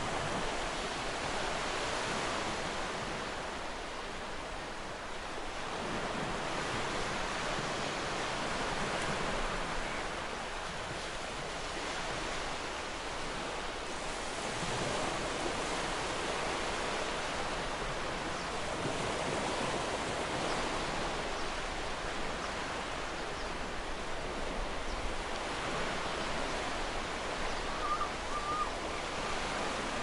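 Gentle ocean waves washing ashore, a steady surf that swells and eases about every five to six seconds.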